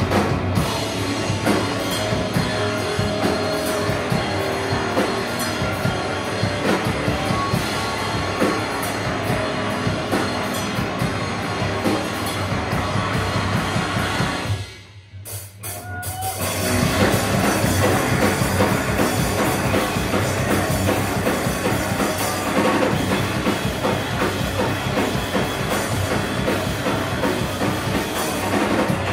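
Live rock band playing loud with drum kit and electric guitars, breaking off for about a second halfway through, then coming back in.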